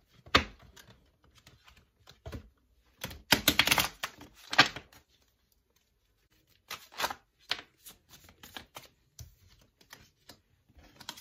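Tarot cards being shuffled by hand and set down on a wooden desk: a sharp tap about half a second in, quick flurries of card clicks around three to five seconds in, then lighter scattered taps.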